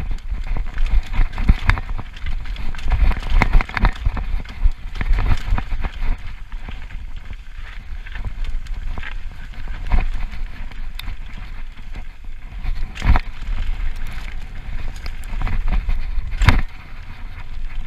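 Downhill mountain bike riding fast over a rough dirt trail: wind buffets the microphone, the tyres rumble over dirt and the bike rattles, with several sharp knocks as it hits bumps, the loudest near the end.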